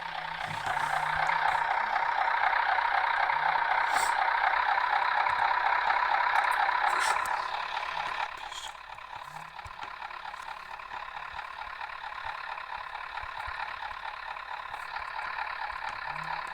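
Cabin noise of a MAZ-105 articulated city bus under way: the drivetrain and engine hum steadily, louder for the first half, then easing off at about the eight-second mark.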